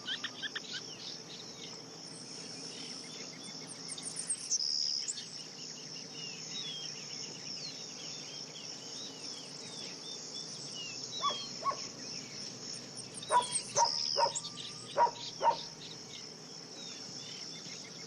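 Outdoor forest ambience: a steady high-pitched insect chorus with many small birds chirping. About 11 s in, and several more times between about 13 and 15.5 s, short sharp louder calls or clicks stand out.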